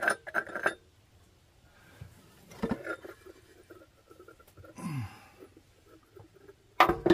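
Handling sounds as the air cleaner is taken off a 1980s Chevy K30's carburettor. There are a few light clicks and scrapes, a short falling scrape about five seconds in, and a sharp clank near the end.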